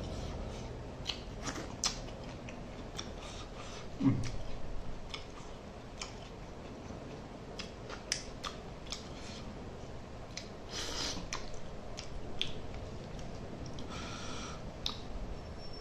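Close-miked mukbang eating sounds: chewing and lip smacking with many small wet mouth clicks, and fingers being sucked clean. A low thump about four seconds in is the loudest sound.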